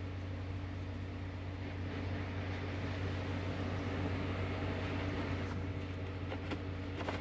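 A steady low machine hum with a hiss over it that swells a little in the middle.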